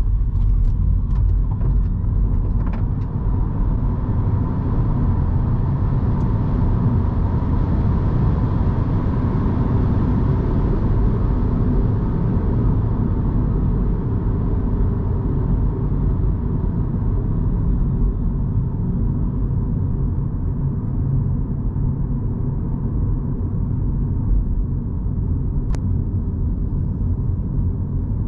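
2023 Mini Cooper SE electric car on the move: a steady low rumble of road and tyre noise with no combustion engine sound, and a few light clicks in the first few seconds.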